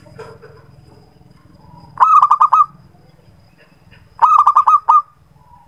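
Zebra dove (perkutut) cooing: two quick phrases of about five rapid staccato coos each, the first about two seconds in and the second about four seconds in.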